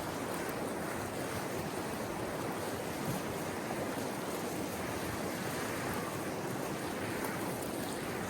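Mountain river rushing steadily: an even wash of flowing water.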